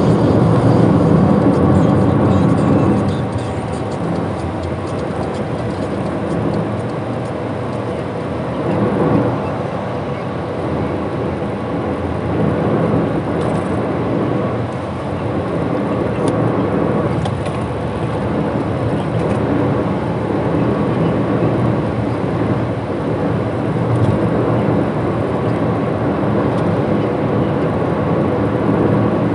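A car driving at speed on a highway: a steady rush of road, tyre and engine noise, a little louder for the first few seconds.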